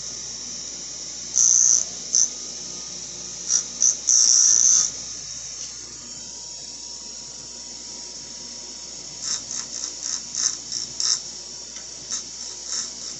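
WEN 6-inch bench grinder running at speed with a steady high hiss. Short loud hissing bursts come a few times in the first five seconds, and a rapid irregular string of them from about nine seconds in.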